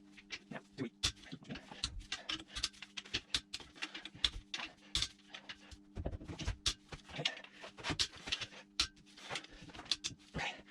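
Irregular metallic clicks and clinks of a socket ratchet and hand tools as bolts are undone on a Mini R53 W11 engine block, over a faint steady hum.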